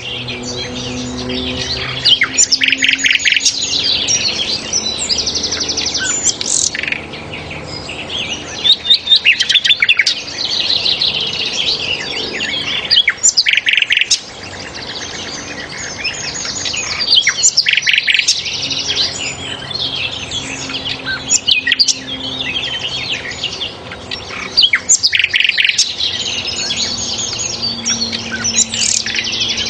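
Songbird singing continuously: a varied song of high whistles and chirps, broken every few seconds by fast rattling trills, over a faint low hum.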